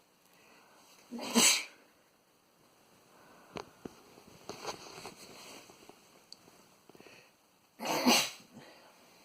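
A man sneezing twice, about six and a half seconds apart, each a short build-up then a loud burst. Faint clicks and rustles come in between.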